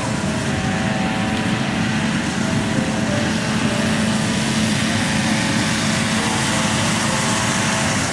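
Steady vehicle engine noise: an even rushing sound with a constant hum and several held tones, unchanging throughout.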